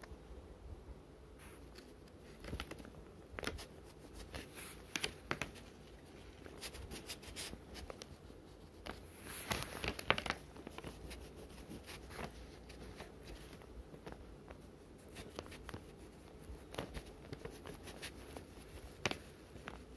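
Faint scratching of a colour pencil shading on paper, with scattered light clicks and paper rustles. There is a denser, louder cluster of clicks and rustles about halfway through.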